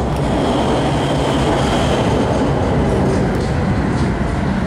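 Electric tram running along the track, heard from inside the passenger car: a steady rumble of wheels on rail, with a faint high tone for the first couple of seconds.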